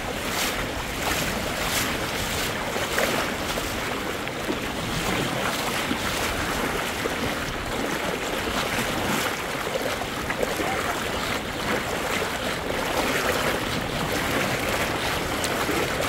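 River water rushing steadily in a strong current while someone wades across it, with wind on the microphone.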